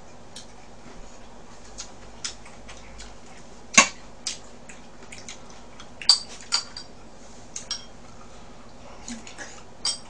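Eating utensils clicking and clinking against dishes and a pan at a meal table, a scattering of short, sharp knocks with the loudest about four seconds in.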